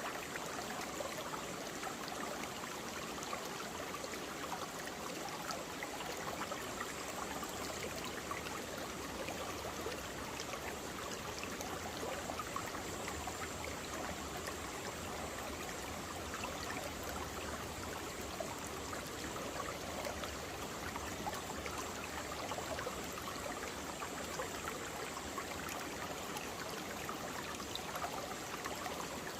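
Mountain valley stream flowing over rocks: a steady rush of water with many small splashes and trickles.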